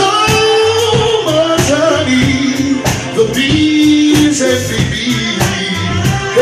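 Live soul band music: male voices singing into microphones, holding and bending long notes over a steady drum beat.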